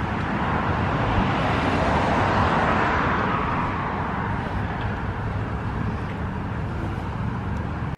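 Stroller wheels rolling over an asphalt path, a steady low rumble under an outdoor rushing noise that swells in the middle and then eases off.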